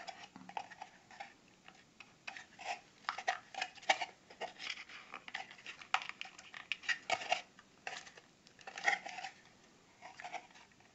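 Small cardboard box and its inner insert being handled and worked apart: an irregular run of short scrapes, taps and rubs as the snug-fitting insert is slid out of its sleeve.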